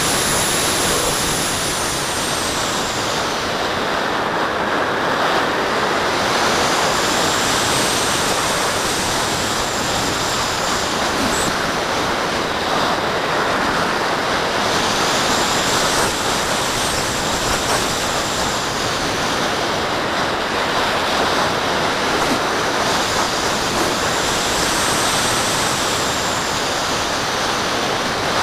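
Airflow rushing over the microphone of a camera mounted on a model glider's wing in flight: a loud, steady rush with a high hiss that swells and fades several times as the glider banks and circles.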